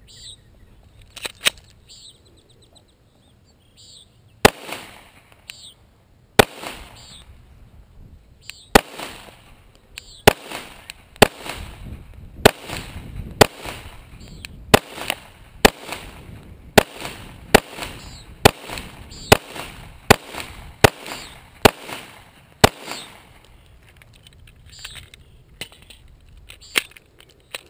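A 9mm Glock pistol firing a steady string of about seventeen shots, roughly one a second, each followed by a short echo. Birds chirp before the first shot and after the last.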